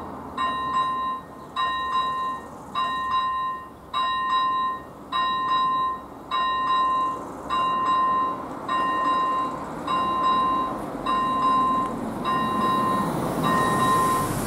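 Electronic bell of an AŽD 97 level-crossing warning signal (first-generation electronic bell) dinging about once a second, a clear single-pitched ding each time, sounding because the crossing is closed for an approaching train. Over the last couple of seconds a rising rush of an approaching vehicle builds under the dings.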